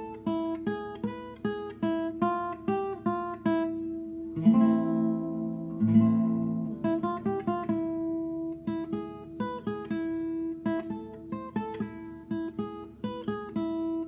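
Acoustic guitar played fingerstyle: a steady run of single picked notes, two strummed chords left ringing about four and six seconds in, then picked notes again.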